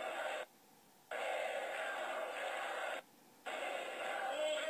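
Distorted, hiss-like crowd noise from a large demonstration, cutting out abruptly twice for about half a second each.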